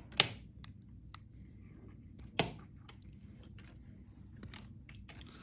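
Diagonal side cutters stripping the insulation off electrical wires: two sharp snips about two seconds apart, with lighter clicks and handling noise between.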